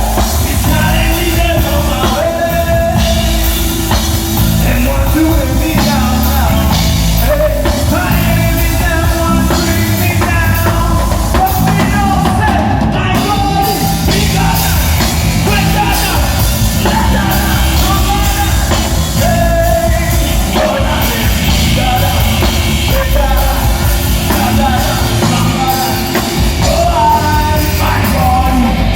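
Live band playing a song at full volume, with a lead singer's voice over drums and bass guitar.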